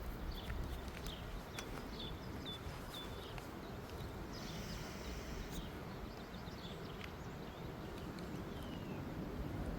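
Small birds chirping in short, quick calls, several in the first few seconds and a falling one near the end, over a steady low rumble.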